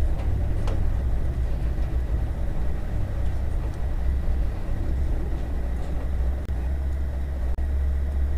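Steady low background rumble that drops out for an instant twice near the end.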